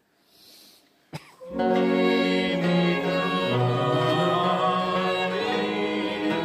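After about a second and a half of quiet with a faint click, a choir and baroque strings, violin and theorbo among them, come in together on a sustained chord and carry on singing and playing, with the long ring of a large church.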